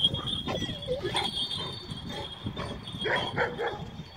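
Kangal shepherd dogs barking in short bursts, with a quick run of barks about three seconds in.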